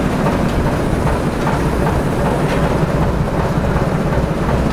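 Erie Lackawanna diesel locomotive running close by: a loud, steady low rumble of the engine.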